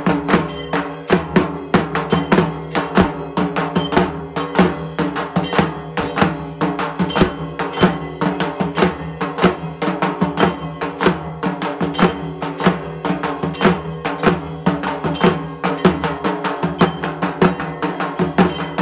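Ritual percussion during the Durga Puja arati: fast, unbroken drumming mixed with clanging metal bell-like strikes, over a steady ringing.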